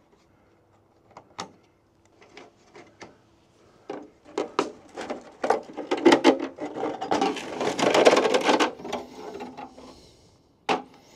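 A metal rainwater downpipe being worked on by hand with a tool: scattered clicks and taps, then a run of scraping strokes that builds into a dense, loud rasping stretch past the middle and dies away near the end.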